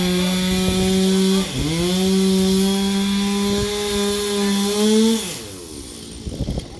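Two-stroke chainsaw running at high revs and cutting wood. Its pitch dips sharply about a second and a half in as it bogs under load, picks back up, then falls away a little after five seconds as the throttle is released.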